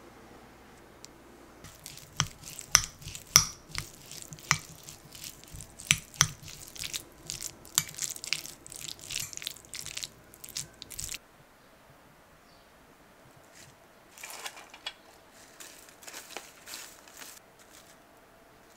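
A spoon mixing sauce-coated chopped raw ham in a glass bowl: a busy run of clinks and scrapes against the glass that stops suddenly about eleven seconds in. A few seconds later, a shorter, softer run of clicks as the mixture is spooned out onto a bowl of rice.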